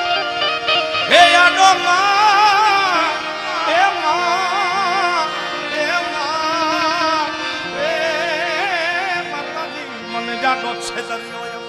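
Male voice singing a wordless, drawn-out Gujarati devotional melody with heavy vibrato and ornamented turns, in several long phrases, the first starting with an upward slide about a second in. Steady held notes from the accompanying instruments carry on beneath the voice.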